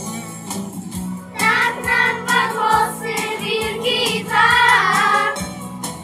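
A song with singing over a steady beat. The voices come in about a second and a half in and stop shortly before the end, leaving the accompaniment alone.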